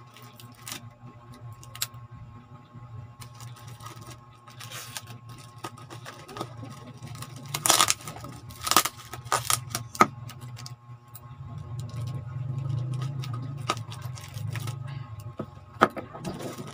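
Small scissors snipping, with plastic packing wrap and tape crinkling and tearing as a cardboard parcel is cut open. The sound comes as scattered clicks and rustles, with a few louder tearing rustles around the middle, over a steady low hum.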